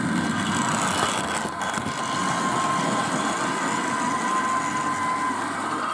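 00 gauge model locomotive running on the layout, a steady mechanical running noise with a faint high whine.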